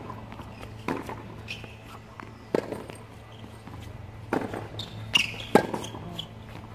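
Tennis ball being struck by racquets and bouncing on a hard court during a rally: sharp single pops a second or two apart, the loudest two close together near the end.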